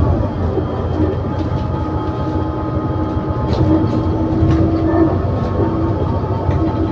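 ADL Enviro400 City double-decker bus with a Voith automatic gearbox running under way, heard inside the saloon: a steady diesel drone with a held driveline whine and the engine note shifting just at the start. Brief rattles of the bodywork come now and then.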